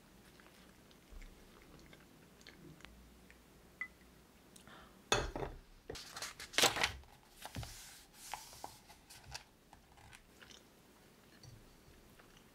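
Pages of a paperback book being turned: a few small ticks and rustles, then a louder stretch of paper rustling from about five seconds in, loudest near the middle, and lighter rustles after it.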